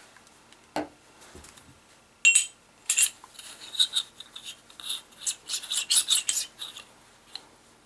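The metal barrel assembly of a Ramset powder-actuated nail gun being worked back and forth by hand. It gives a run of quick metallic clicks and scraping, freshly oiled so that it slides more freely. A single knock comes about a second in.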